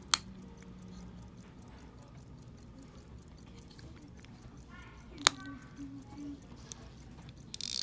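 Faint, rapid ticking of a 1921 Hamilton 17-jewel pocket watch movement, with a sharp click right at the start and another about five seconds in as the watch is handled, and a short rustle of handling near the end.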